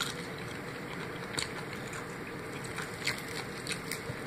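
Crispy fried chicken being pulled apart by hand and chewed, giving a few faint crackles and clicks over a steady background hiss.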